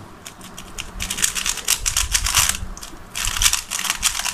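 Plastic 3x3 speed cube being turned rapidly by hand: fast clattering layer turns in flurries, quieter for about the first second. The cube is freshly lubricated and turning really fast.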